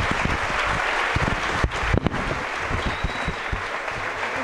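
Audience applauding steadily, with a few low thumps about two seconds in.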